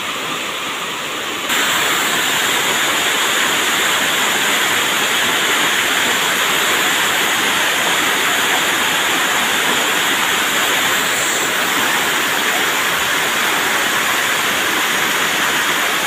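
Water cascading down a rocky waterfall: a steady rush that jumps louder about a second and a half in, then holds.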